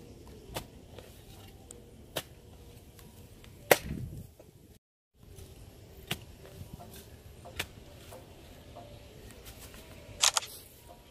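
Hoe blade striking into wet, muddy soil: single sharp chopping strikes every second or two, the loudest a little under four seconds in and a quick double strike near the end. The sound cuts out completely for a moment near the middle.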